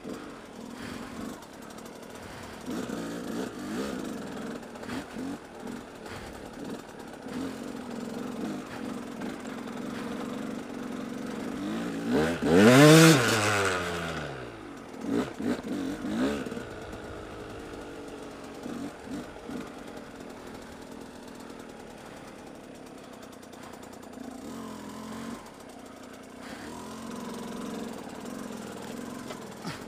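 Off-road motorcycle engine running at low speed over rough rocky ground, with throttle worked on and off. About halfway through it revs hard, climbing and then dropping in pitch, and two shorter revs follow.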